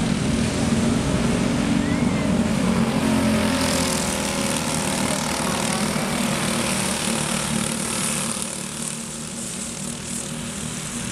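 Several racing kart engines running at speed as the karts lap a dirt oval. They are louder while karts pass close, from about three seconds in, and ease off a little near the end.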